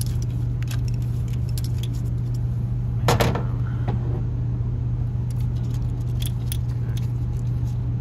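Steady low mechanical hum with scattered, irregular light metallic clicks and one louder knock about three seconds in.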